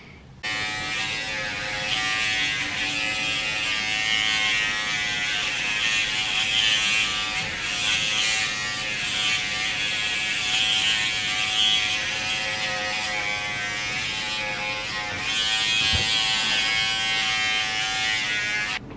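Electric shaver buzzing steadily as it is run over the legs. It starts suddenly about half a second in and switches off just before the end.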